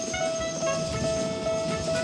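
A chiming electronic melody of short notes at changing pitches over one held tone, above a low rattling rumble.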